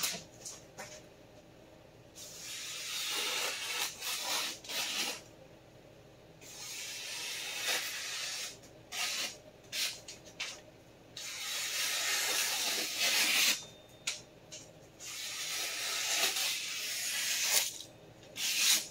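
Freshly sharpened vintage Clyde Cutlery chef knife slicing through a hanging sheet of newspaper: about four long, even hissing cuts of two to three seconds each, with short paper rustles and crackles between them. The smooth slicing is the cut test of a razor-sharp edge.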